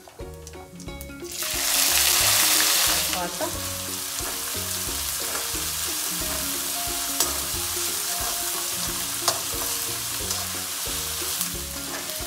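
Chopped onions tipped into hot mustard oil in a kadai: a loud burst of sizzling about a second and a half in, settling after a couple of seconds into a steady frying sizzle, with a few sharp clicks of the slotted spoon stirring against the pan.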